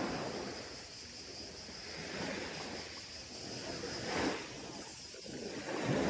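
Small sea waves washing onto a beach, the wash swelling and easing about every two seconds.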